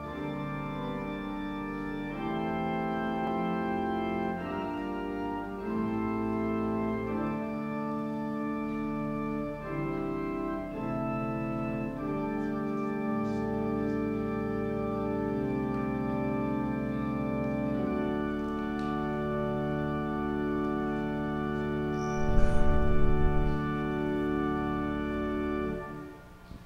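Organ music: held chords that change every second or two, stopping shortly before the end. About 22 seconds in comes a loud, low rumbling bump lasting over a second, the loudest sound here.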